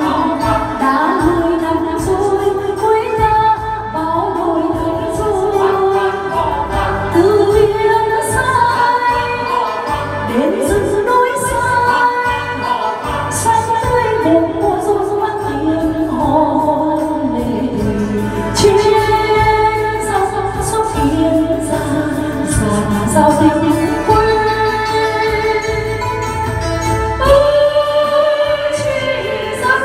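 A woman singing a Vietnamese song into a karaoke microphone over a recorded backing track, her voice amplified with reverb through the room's speakers.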